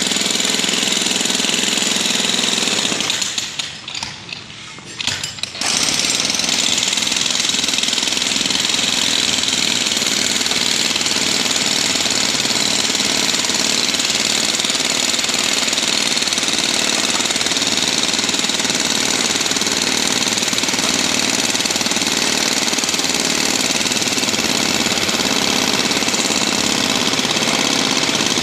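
Electric Hilti hammer drill running continuously with a steady, loud hammering clatter. It drops out for about two seconds around three to five seconds in, then starts up again and keeps going.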